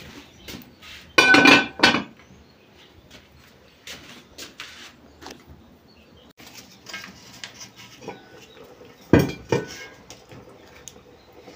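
Metal cooking pots and utensils clanking, with two loud clatters that ring briefly, about a second in and near the end, and lighter clinks between.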